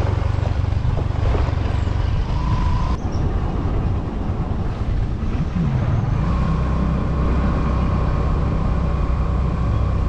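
A vehicle driving along a road: a steady low engine and road rumble, with the engine note shifting about five to six seconds in.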